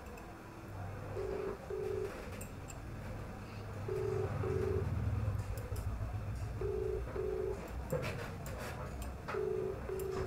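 Mobile phone ringback tone playing through the handset's loudspeaker: four double rings, each two short low beeps, repeating about every two and a half seconds, in the Indian double-ring pattern of a call that has not yet been answered.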